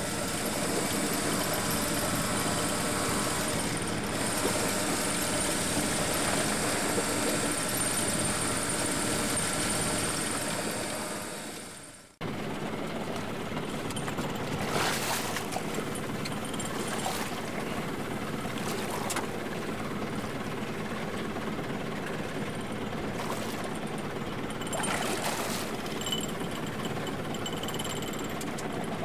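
Steady mechanical running of a powered fishing reel hauling in line on a boat. The sound breaks off suddenly about twelve seconds in, then resumes with a few short, sharp sounds.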